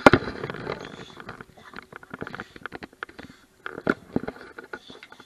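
Pit bull moving about at close range: irregular soft clicks and rustles, busier at the start, with one sharp knock about four seconds in.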